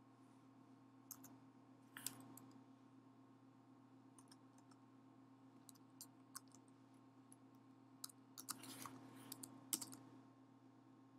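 Faint keystrokes on a computer keyboard: a few isolated taps, then a quicker run of clicks near the end, over a low steady hum.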